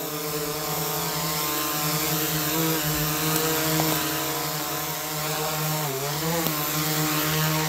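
Small quadcopter drone flying, its propellers giving a steady whine, with a brief dip in pitch about six seconds in as the motors ease off and pick up again.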